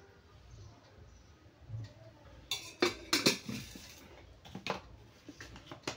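Metal kitchen utensils clinking and knocking against each other: a quick cluster of clinks about two and a half seconds in, then a few single knocks near the end.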